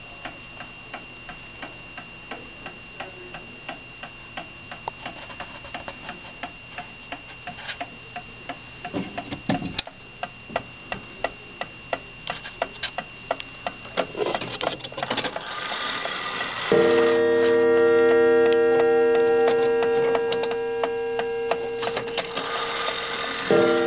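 Antique New Haven pendulum mantel clock ticking steadily. About two-thirds of the way in, a loud ringing chord of several held notes comes in and sounds again near the end.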